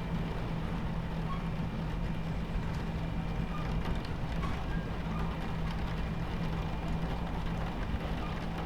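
Train running on its tracks, heard from inside a carriage: a steady low rumble with a constant hum, and rain on the window ticking faintly over it.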